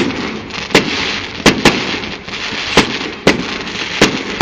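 Fireworks going off: a rapid, uneven run of about eight sharp bangs in four seconds, over a steady hiss between them.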